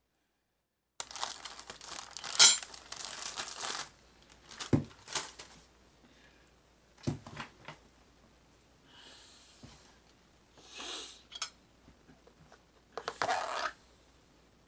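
Paper wrapping torn and crinkled off a plastic takeout bowl, loudest in the first few seconds, with a few sharp knocks of the bowl and lid being handled. Near the end comes another crinkle as the clear plastic lid is lifted off.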